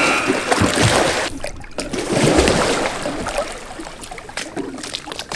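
Water splashing as a sea kayak capsizes for a roll attempt, followed by quieter sloshing, trickling and drips while the boat floats upside down. The splashing is loudest in the first second or so.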